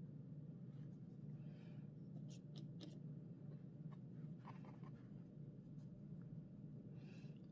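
Faint swishing of a watercolour brush stroking across paper, in three short passes, with a few light clicks a little over two seconds in.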